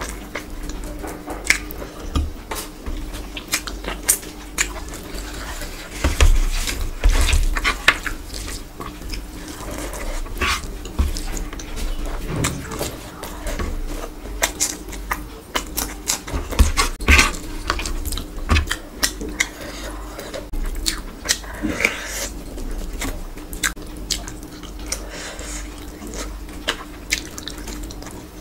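Close-miked eating sounds: wet chewing, lip smacks and mouth clicks as rice and meat curry are eaten by hand, with the soft squish of rice being mixed by fingers. A faint steady hum runs underneath.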